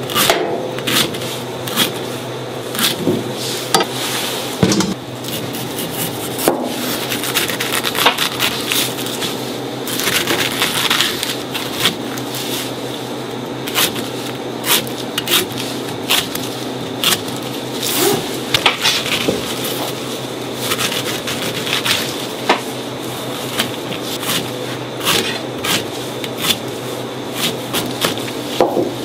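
A kitchen knife cutting fruit on a cutting board, giving irregular knocks and clicks several times a second, some louder than others, over a steady hum.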